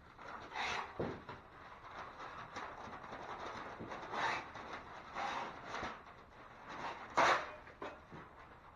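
Masking paper and tape being handled: irregular rustling and scraping, with short bursts as paper is moved and tape is pulled and pressed down, the loudest about a second in and again a little past seven seconds.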